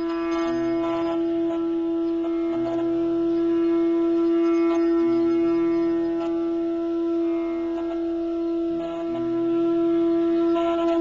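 Music: one long, steady note from a blown horn held throughout, over lower accompanying tones that come and go every second or two.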